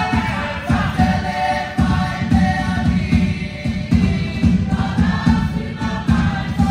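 A group of voices singing together in Polynesian song over a steady low beat, several beats a second.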